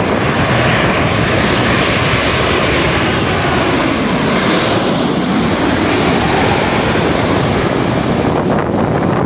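Boeing 737-900ER's CFM56-7B turbofan engines on final approach, passing low overhead: a loud, steady rush with a high fan whine that is strongest about four to five seconds in, as the jet goes directly over, then eases as it moves away.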